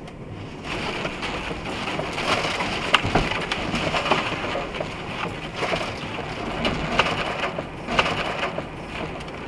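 Ice-coated tree branches brushing and scraping over a truck's windshield and cab, crackling with sharp snaps of breaking ice. The crackling starts about a second in and eases off near the end.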